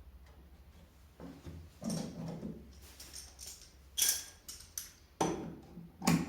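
A series of knocks and clatters of wooden workpieces and parts being handled and set down on a workbench, the sharpest about four seconds in and just after six seconds.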